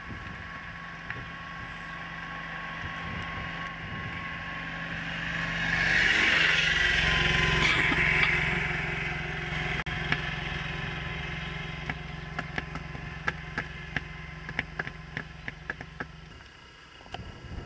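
A vehicle engine runs steadily, swells louder for a few seconds about midway, then stops near the end. A string of sharp clicks comes in the second half.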